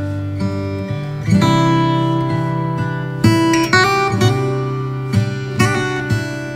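Background music: acoustic guitar strumming chords, with a fresh strum every second or so.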